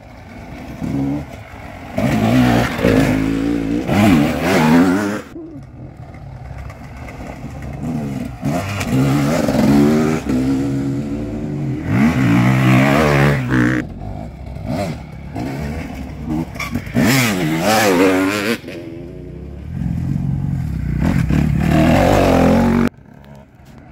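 Several enduro dirt bikes ride past one after another, their engines revving up and down as the riders work the throttle coming down the hill. The sound drops away suddenly near the end.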